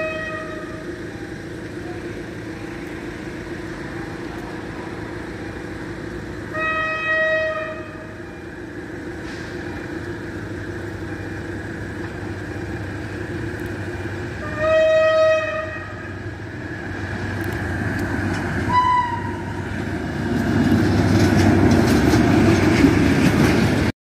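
Approaching locomotive sounding its horn in single blasts of about a second each, one about 7 s in and another about 15 s in, with a brief higher toot near 19 s. These are the Polish Rp1 'attention' (baczność) warning signal for the level crossing. The rumble of the oncoming train grows louder over the last few seconds.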